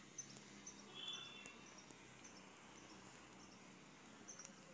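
Near silence: faint outdoor background with soft, high-pitched chirps repeating about twice a second, and a brief higher warble about a second in.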